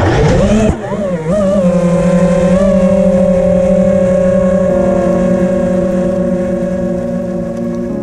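FPV racing quadcopter's four brushless motors (T-Motor F40 Pro II, 2400kv) spinning hard on take-off: a loud motor whine that wavers in pitch for the first second and a half, then holds a steady high pitch.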